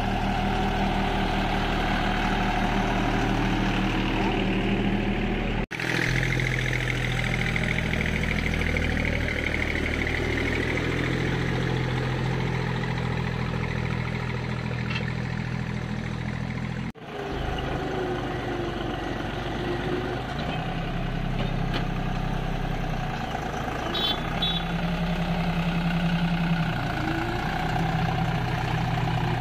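Deutz-Fahr tractor's diesel engine running steadily under load while pulling a laser land leveller across the soil, broken twice by a momentary gap in the sound.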